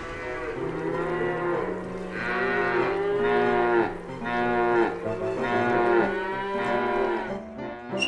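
Cattle mooing: about five long moos one after another, over a steady low hum. Here it is a mismatched animal sound laid over the footage.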